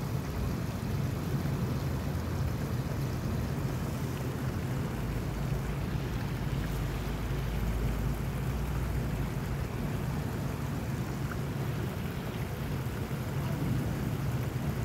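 Steady rushing of a flowing stream, with wind buffeting the phone's microphone as a low rumble that is heaviest from about five to nine seconds in.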